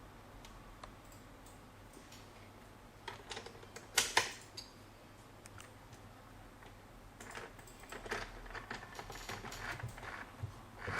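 Small plastic clicks and taps from handling a mini sewing machine while threading it: a few sharp clicks, two of them loudest, about four seconds in, then a quick run of light clicking near the end.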